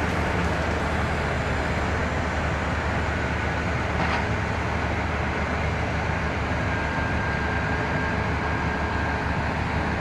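Crawler tractor engines running steadily, a low rumble under an even noise. One short click about four seconds in.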